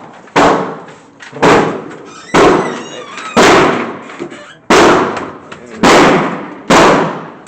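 Seven gunshots fired at a steady pace of about one a second, each a sharp crack with a reverberating tail.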